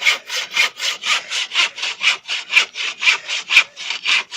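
Handsaw cutting through wood in quick, even back-and-forth strokes, about four a second.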